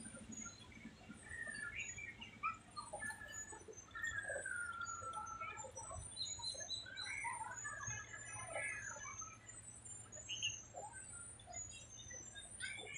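Many small birds chirping and calling in the trees, short high chirps and gliding whistles overlapping throughout, over a faint steady low hum.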